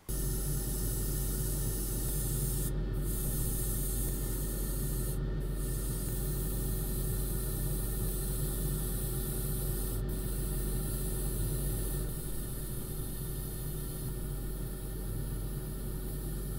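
Airbrush spraying paint in a steady hiss, cut off briefly three times as the trigger is let go, over the steady hum of a motor running underneath.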